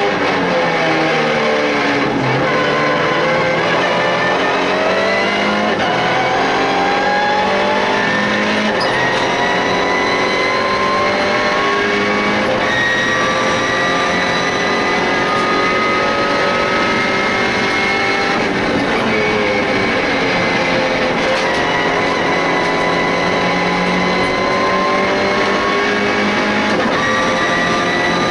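MINI Challenge race car engine heard from inside the cockpit at racing speed. It drops in pitch under braking and downshifts at the start, then pulls long and steady, rising in pitch down the straight. Around twenty seconds in the pitch falls again as it slows, then rises again near the end.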